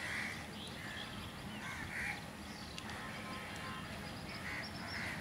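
Crows cawing repeatedly, short harsh calls coming in quick runs with a pause of about two seconds in the middle.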